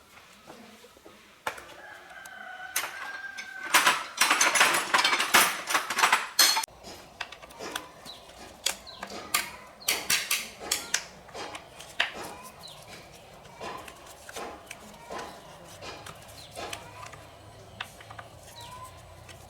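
Chickens clucking and a rooster crowing, with a loud stretch of squawking about four seconds in, followed by a series of short sharp knocks and clicks.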